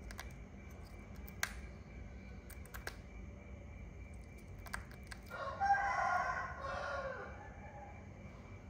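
A rooster crows once, a call of about two seconds starting a little past halfway. Faint scattered clicks come before it.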